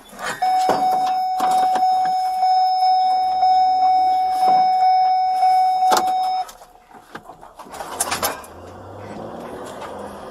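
A steady, unbroken electronic beep that holds one pitch for about six seconds and cuts off suddenly, with scattered knocks and clunks over it. After that an engine runs with a low hum.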